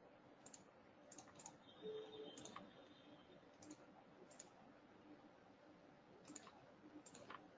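Faint computer mouse clicks, about a dozen scattered single clicks and quick pairs.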